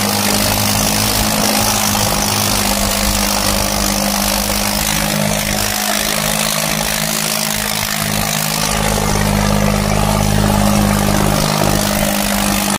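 John Deere 5210 tractor's diesel engine running hard and steady under heavy load as it drags two harrows through the soil, a loud, even drone with a rough noisy edge.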